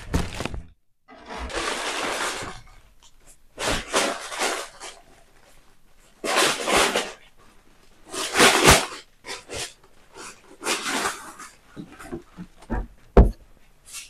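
Plastic garment bags and paper rustling and crinkling in bursts as packaged clothes are handled and lifted out of a cardboard box, with a sharp knock about a second before the end.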